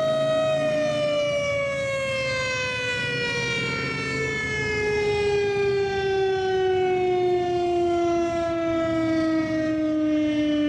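Federal Signal STH-10 outdoor warning siren winding down at the end of its steady test tone. Its pitch holds for about half a second, then falls slowly and evenly as the rotor coasts to a stop.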